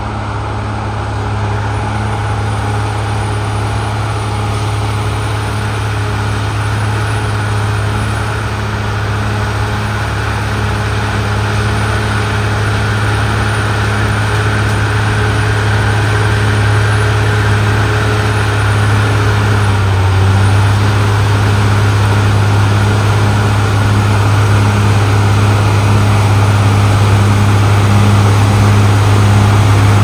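CAT D6R XL bulldozer's diesel engine running steadily under load as the dozer pushes dirt, a continuous low drone that grows gradually louder as the machine comes closer. About two-thirds of the way through, the engine note shifts lower.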